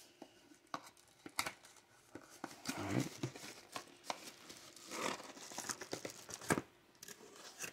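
Cardboard box being opened by hand: flaps and packaging rustling and scraping, with scattered crinkles and light knocks.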